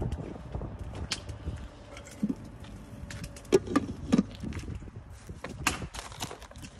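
Handling noise from a hand at the ingredient containers, including a plastic bag and cling film: scattered clicks and crinkles, with a few dull knocks about two to four seconds in. A low wind rumble on the microphone sits underneath.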